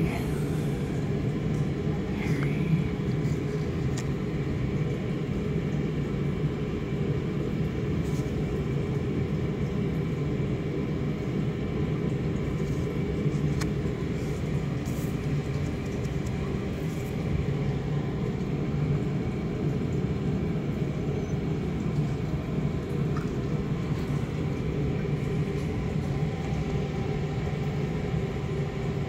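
A steady low rumble at an even level, with a few faint clicks.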